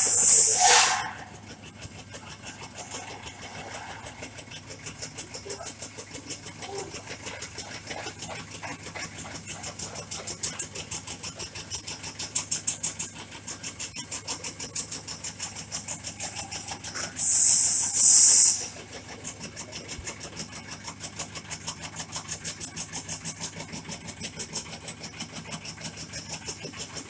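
Tobacco shredding machine running with a rapid, even chopping pulse and a low steady hum as tobacco leaves are fed through its cutter. Twice, at the start and again about two-thirds through, there is a louder hissing rush lasting a second or two.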